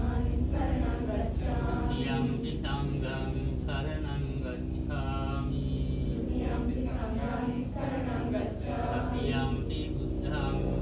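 A group of voices chanting a Buddhist recitation together in a steady sing-song, over a low background hum.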